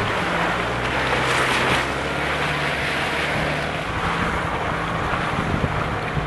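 Moving vehicle heard from inside the cabin on a rough dirt road: a steady low engine hum under a constant rush of road and wind noise.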